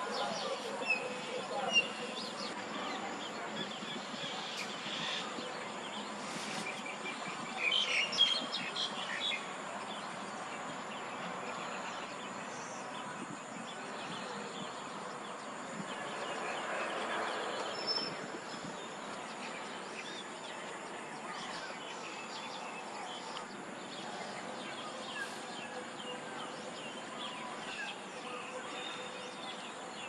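Outdoor nature ambience: a steady buzz of insects with scattered short bird chirps, a few louder ones about two and eight seconds in.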